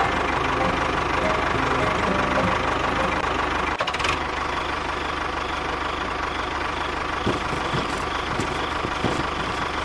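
An engine running steadily with a fast, even chugging beat, briefly interrupted about four seconds in.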